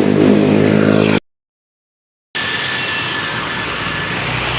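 Tour bus close by, a loud droning sound with several pitched layers, cut off abruptly about a second in. After about a second of total silence comes steady roadside traffic noise.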